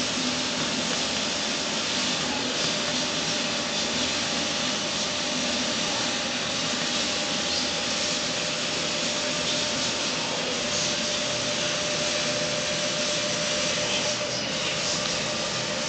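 Wide-format vinyl sticker printer running steadily, its print-head carriage and fans making a constant whirring noise with faint steady tones.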